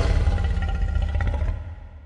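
A loud monster-style sound effect with a deep rumble and steady ringing tones, fading out over the last half second.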